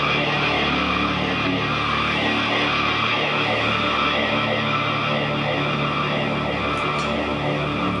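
Industrial band playing live: a dense, steady drone of layered, sustained tones with no clear drumbeat.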